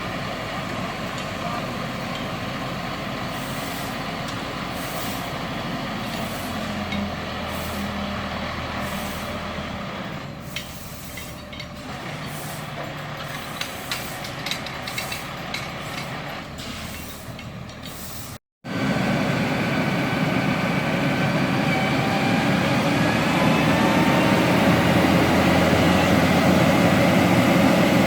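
Heavy truck engine running steadily, with scattered sharp ticks partway through. After a brief cut about two thirds of the way in, the machinery is louder and a slowly rising whine comes in.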